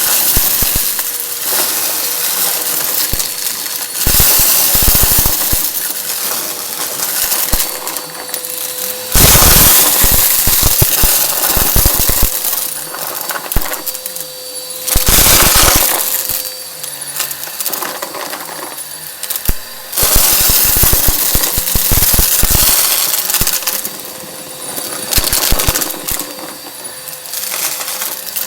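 Vacuum cleaner sucking up crunchy debris: rapid rattling and crackling of bits pulled through the nozzle over the steady whine of the motor, surging louder several times as it takes in more of the mess.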